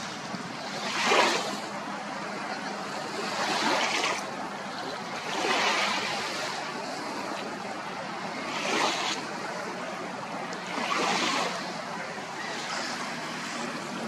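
Small waves washing up onto a sandy beach, each one a rush of surf that swells and fades, about five in a row every two to three seconds.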